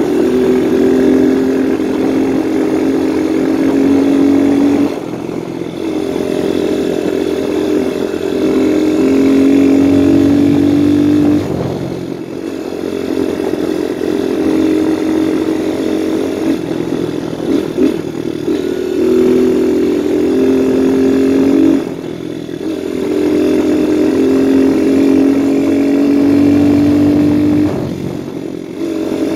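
Viper 150cc dirt bike's single-cylinder engine running under load at steady throttle. It eases off about every five or six seconds, then picks up again.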